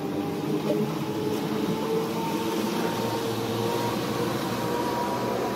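A small motorboat's engine running steadily under way, with the rushing of wind and choppy water, heard from inside the wheelhouse.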